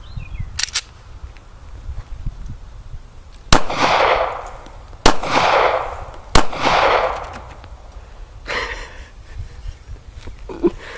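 Three pistol shots from a semi-automatic handgun, about a second and a half apart, each followed by a fading echo lasting about a second.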